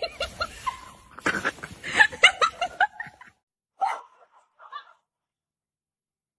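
A person laughing for about three seconds, followed by a couple of short vocal sounds.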